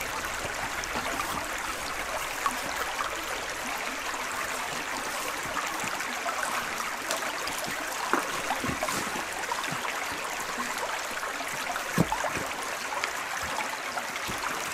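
Shallow stream running over stones with a steady babble. A few soft knocks sound over it, the clearest about twelve seconds in.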